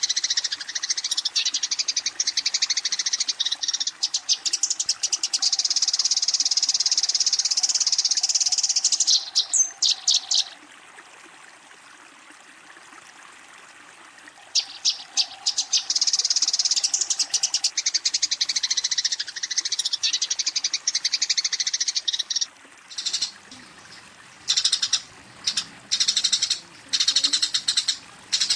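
Eurasian tree sparrow chattering: very rapid, continuous high chirps in long runs, with a pause of about four seconds in the middle and short separate bursts near the end. This is its aggressive fighting chatter, the call that challenges a rival.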